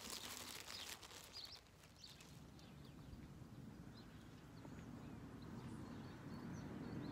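Clothing and tackle rustling and clicking close to the microphone for about the first two seconds, then quiet outdoor background with a faint low rumble and a few faint bird chirps.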